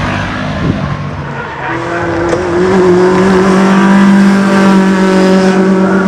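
Race car engine held at high revs, a steady single note that swells as the car approaches. Another car's engine fades away in the first second or so.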